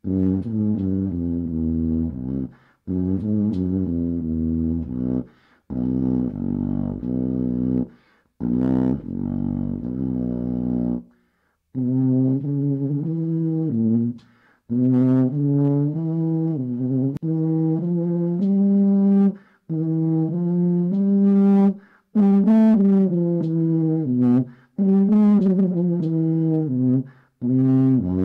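The Loo-phonium, a tuba-like brass horn built into a lavatory, playing a tune in short phrases with breath gaps between them. The first phrases sit very low, and after about a third of the way in the tune moves into a higher range.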